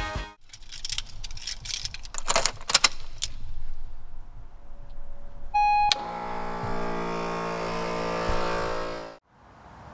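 Keys jangle and click, then a short electronic beep sounds. An onboard air compressor for an ARB air locker spins up and runs with a steady hum for about three seconds, then cuts off suddenly.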